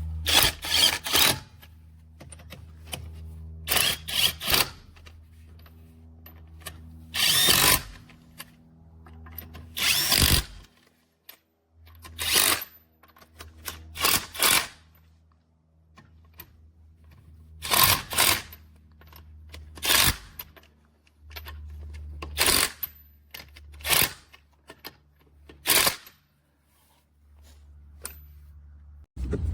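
Cordless impact wrench run in about a dozen short bursts, each under a second, with pauses of one to three seconds between them. A steady low hum lies beneath.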